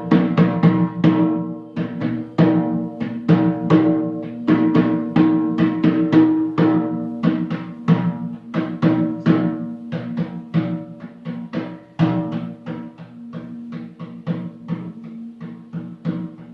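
Rhythmic percussion music: pitched drum strikes at about three to four a second, each ringing over a held low tone, growing softer in the second half.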